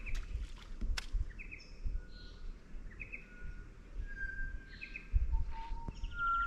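Birds calling: a short high call repeated about once a second, with a few longer whistled notes in the second half, over a low rumble and a couple of sharp clicks near the start.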